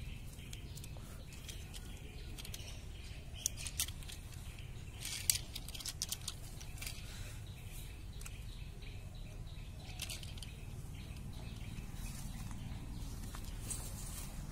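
Handling noise: scattered light clicks and rustles, thickest about four to six seconds in and again around ten seconds, over a steady low rumble.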